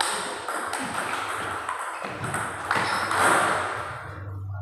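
Table tennis rally: the plastic ball ticks sharply off rubber paddles and the table in a quick exchange. There is a louder swell of noise about three seconds in.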